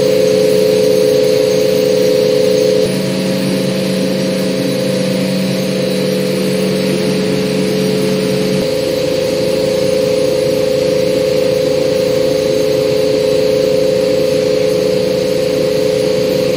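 A motor-driven machine running steadily, giving a constant hum over a hiss. The level drops slightly about three seconds in, and the lower part of the hum fades a little past the midpoint.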